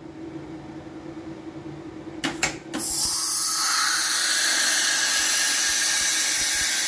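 Compressed air hissing out of a CNC router spindle's pneumatic tool release during a tool drop-off cycle, run although no tool is loaded. A few short clicks come about two seconds in, then a loud, steady hiss starts just under three seconds in.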